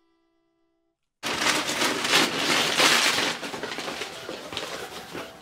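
Gift-wrap paper crackling, crumpling and tearing as a present is unwrapped, starting suddenly about a second in and loudest for the next two seconds, then softer rustling.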